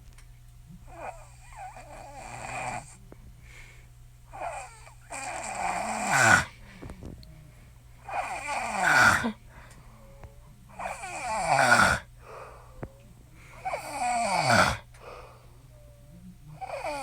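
A woman snoring in her sleep: a loud snore about every three seconds, each one building up and ending in a sharply falling pitch.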